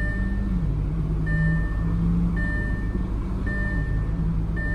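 A car warning chime repeating about once a second, a steady high beep each time, over the low steady hum of the 2008 Audi S4's 4.2-litre V8 idling.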